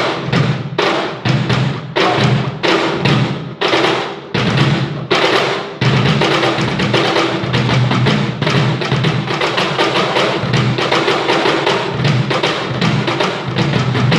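Peruvian cajón drumming played live: separate, spaced strokes at first, turning into a dense run of rapid strokes about six seconds in.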